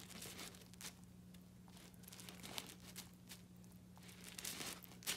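Argentine black and white tegu biting and chewing scrambled egg: soft, irregular wet clicks and crackles of its jaws, coming in clusters, over a steady low hum.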